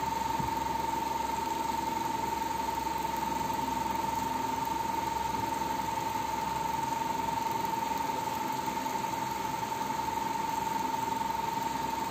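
A steady single-pitched tone that does not change, over a constant hiss.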